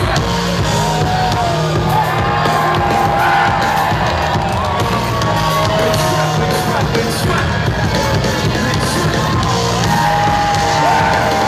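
Live band music heard from among the audience: a steady bass line under a high, gliding melody line, with crowd members yelling and whooping.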